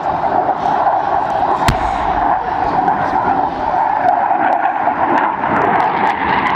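Panavia Tornado jet's twin RB199 turbofan engines giving a loud, steady jet roar during a low display pass. A single sharp bang comes about two seconds in.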